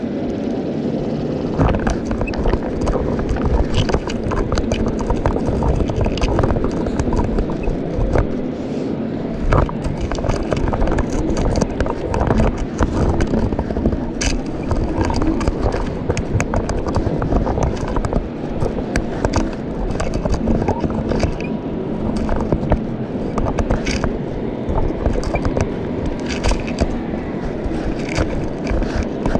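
Fishing magnet being dragged across the riverbed: a continuous scraping rumble with many small clicks and knocks.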